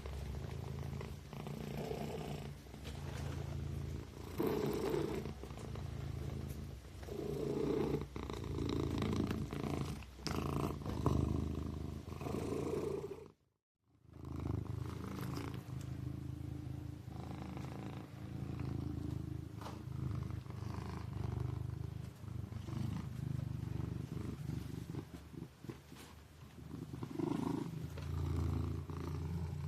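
Kitten purring steadily, the rumble swelling and easing every two to three seconds with its breathing. It breaks off to silence for about half a second near the middle, then carries on.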